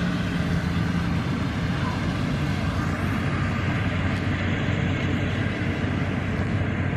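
Yanmar 850 rice combine harvester running steadily as it cuts the crop: a continuous engine drone with a steady low hum.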